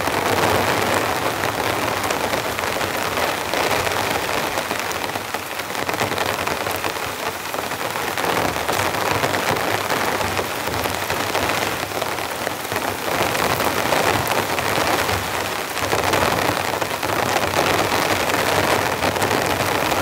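Torrential rain beating down on a camping tarp and the ground around it, growing heavier and easing off by turns.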